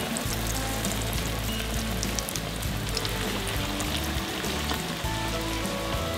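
Panko-breaded fish fillets frying in hot oil in a pan: a steady sizzle with scattered crackles.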